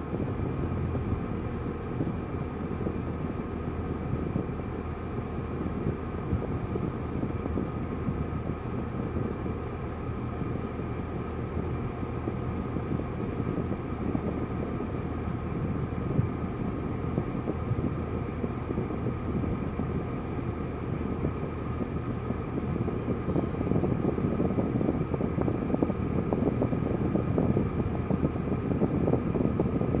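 Steady hum of a car idling, heard from inside the cabin, with a faint steady whine in it. It grows a little louder about two-thirds of the way through.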